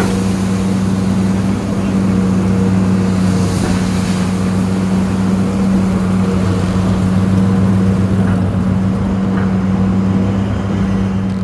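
Hydraulic excavator's diesel engine running at a steady speed, heard from inside the operator's cab.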